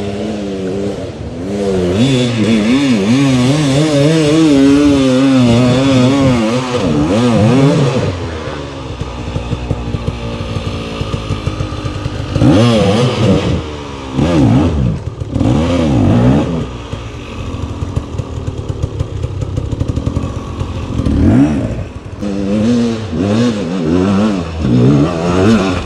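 Enduro dirt bike engines revving hard on a forest climb, the pitch wavering up and down. Several sharp revs rise and fall through the middle and again near the end.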